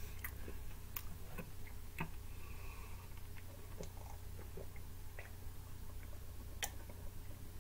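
Faint eating and drinking mouth sounds: chewing, then swallows while drinking iced tea from a cup, heard as scattered small clicks and smacks over a steady low hum.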